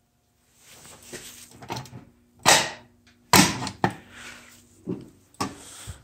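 Irregular handling noise: bumps, rustles and several sharp knocks as someone moves about, with a faint steady low hum under it. The loudest knock comes about two and a half seconds in.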